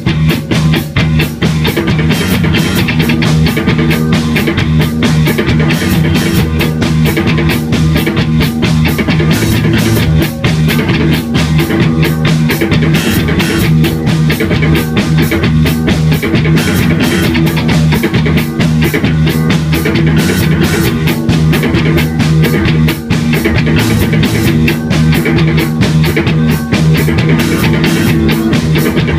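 Live rock band playing loud and without a break: two electric guitars, electric bass and a drum kit, the drums keeping a dense, steady beat.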